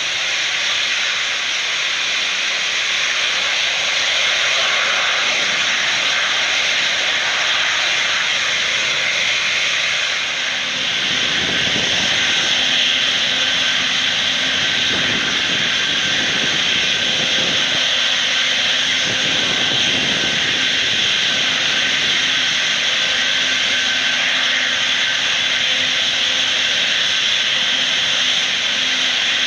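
Antonov An-124 Ruslan's four Progress D-18T turbofans running on the runway: a loud, steady jet hiss. About ten seconds in, a deeper rumble and a steady low hum join the hiss and hold.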